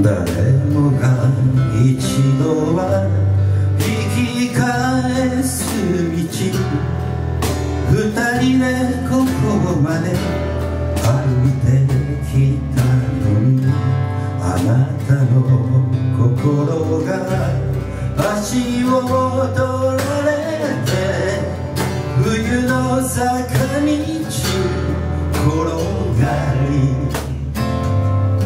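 A man singing into a microphone over a strummed acoustic guitar, a live vocal-and-guitar performance.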